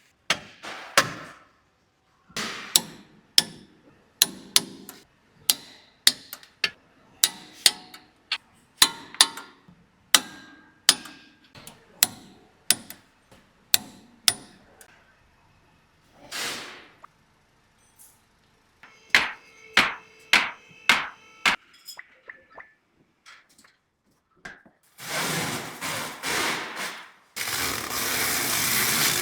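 Repeated hammer blows on metal car parts, about two a second, some of them ringing. Near the end comes several seconds of loud steady rushing noise.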